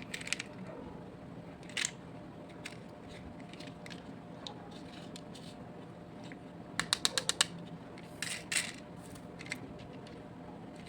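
Small hard toy parts being handled, giving scattered clicks and taps. A quick run of about six clicks comes near the middle and a couple of louder clicks follow about a second later.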